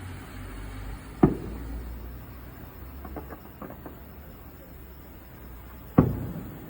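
Two fireworks shells bursting, each a sharp boom with a rumbling echo trailing off, about five seconds apart; a few faint crackles sound between them.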